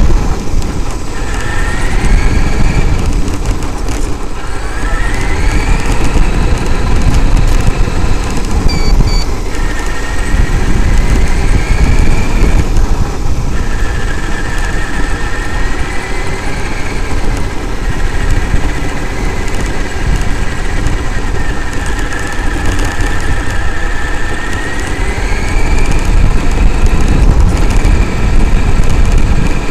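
Traxxas X-Maxx RC monster truck driving over gravel: the high whine of its brushless electric motor and drivetrain rises and falls in pitch several times with the throttle, over a loud rumble of tyres on gravel.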